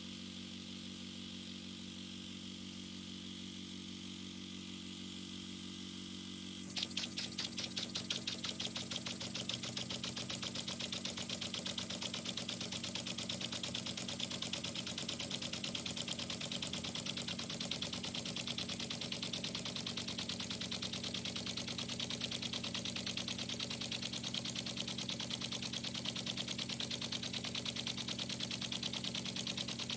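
Small model beam engine starting up about seven seconds in and then running fast with a rapid, even clicking beat, over a steady low hum.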